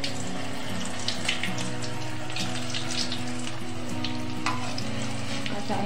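Spinach kofta balls deep-frying in hot oil on a low flame: a steady sizzle with scattered small crackles and pops.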